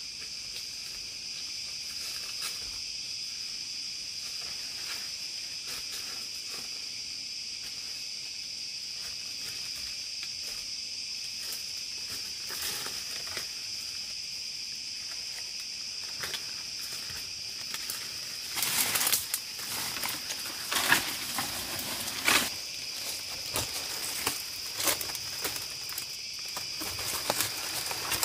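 Insects droning steadily at a high pitch. From about two-thirds of the way in, loud rustling and sharp cracks come over the top.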